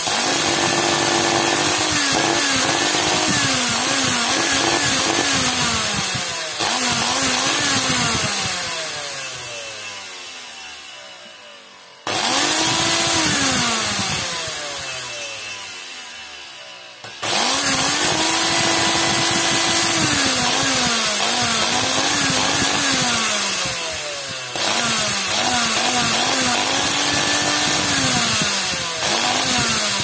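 Failing central vacuum motor, a brushed universal motor, running with a loud whine and a heavy hissing crackle from arcing at its brushes and commutator as it burns out. Its pitch wobbles as it runs, and it repeatedly loses speed, winding down with a falling whine, then surges back up to full speed three times.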